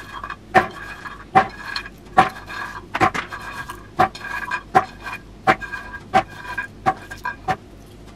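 A hard object clinking and knocking against a ringing container about a dozen times at an even pace, roughly once every two-thirds of a second, as the blender's jar and parts are put together.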